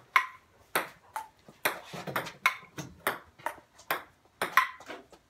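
Table-tennis rally: a plastic ping-pong ball clicking off paddles and the table in quick alternation, about three sharp pocks a second, some with a short ringing ping. The clicks stop shortly before the end as the point is won.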